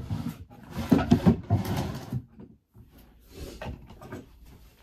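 Rummaging through a drawer while looking for something: a run of knocks and clatter of things being shifted about, loudest about a second in, then fainter handling sounds near the end.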